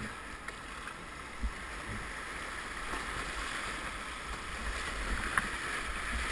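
Flowing river water: a steady rushing hiss that grows gradually louder, with a couple of faint knocks.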